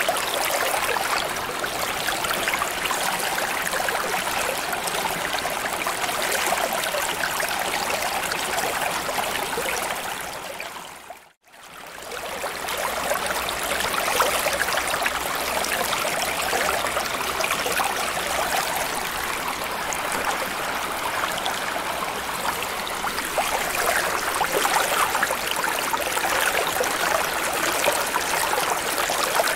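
Steady noise of flowing water, like a stream, that briefly fades out to silence and back in about eleven seconds in.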